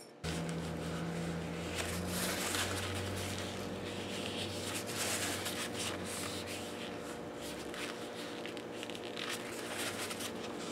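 Paper towel rubbing and rustling against a guitar's finished top as squeezed-out epoxy is wiped from around a freshly set maple plug, in uneven scratchy strokes. A steady low hum comes on abruptly just after the start and runs underneath.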